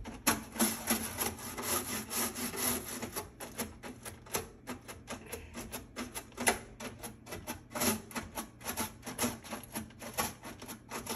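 Toothbrush scrubbing hard inside a microwave at the fine screen over the light cover, in rapid back-and-forth strokes, several a second.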